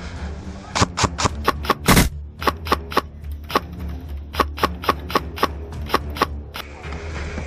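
Airsoft rifle firing a string of about twenty single shots at an uneven pace, two to four sharp snaps a second, with one louder double shot about two seconds in; the firing stops near the end.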